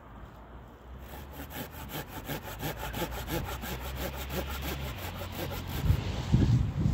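A hand saw cutting through wood in quick, even strokes, about five a second, followed near the end by a few heavier knocks.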